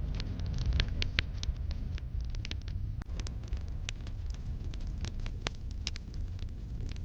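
Wood fire burning in a fireplace, with a steady low rumble of the flames and frequent sharp, irregular crackles and pops of burning wood.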